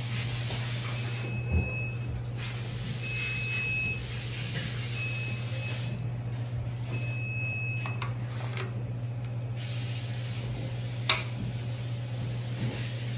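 Workshop background: a steady low hum with several short high-pitched beeps and a few sharp clicks, the loudest click about eleven seconds in.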